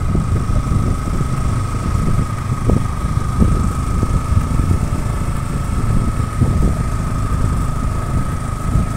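A vehicle's engine running while driving along a road, heard as a steady low rumble with a constant thin whine above it.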